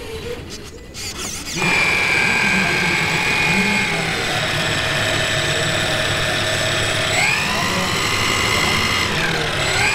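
Electric motors of a large three-motor Junkers Ju 52 RC model spinning their propellers, a steady whine that starts about a second and a half in. The pitch rises about seven seconds in and dips briefly near the end as the throttle changes.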